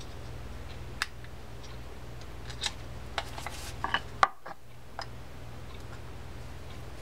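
Scattered small metal clicks and taps from the parts of a D.A.M. Quick spinning reel being handled and a case screw being set with a screwdriver, over a steady low hum.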